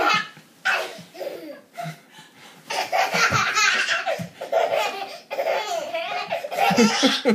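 Baby laughing and giggling in short bursts, running into a longer stretch of laughter from about three seconds in.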